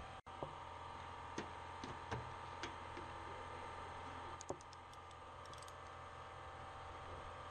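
Scattered sharp clicks and light metal taps of a socket wrench with a 10mm socket being fitted and turned on a car's fender bolts, with a quick run of light ratchet-like clicks about five to six seconds in, over a steady low hum of the shop.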